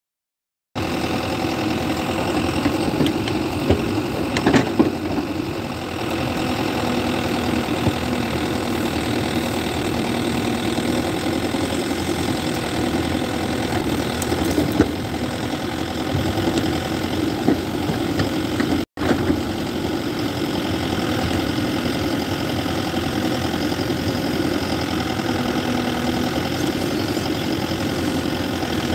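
Backhoe loader's diesel engine running steadily while it digs, with a few short knocks. The sound starts a moment in after a brief silence and drops out for an instant about two-thirds of the way through.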